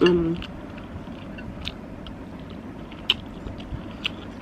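A person chewing a mouthful of soupy pasta, with scattered small wet mouth clicks, after a brief hum at the very start.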